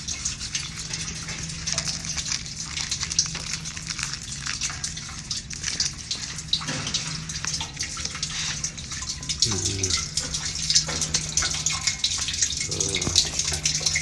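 Jet fuel draining from a Boeing 737's fuel-tank drain into a container: a steady splashing pour of liquid.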